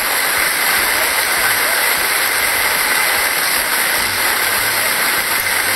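Muddy floodwater rushing through a swollen creek and churning around a stranded car: a loud, steady rush.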